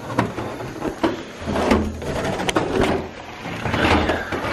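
Rustling and handling noise with several sharp knocks and clicks, most clearly about a second in and twice in quick succession around the middle, as the camera is moved from the wooden table toward the face.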